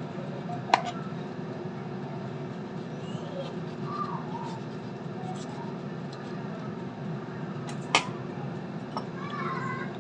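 Kitchen knife slicing a cucumber on a cutting board, the blade knocking sharply on the board twice, just under a second in and again about eight seconds in. Under it runs a steady low hum from the air fryer, which is cooking pork.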